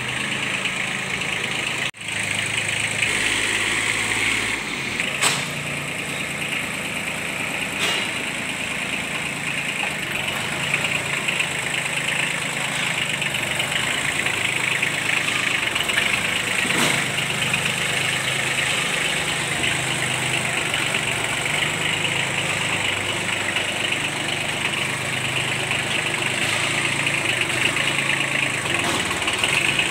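Kubota B1502-M compact tractor's diesel engine running steadily, with a brief dropout about two seconds in.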